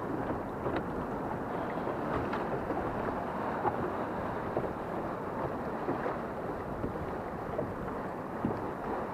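Choppy inlet water lapping and slapping against a small skiff's hull, with wind on the microphone.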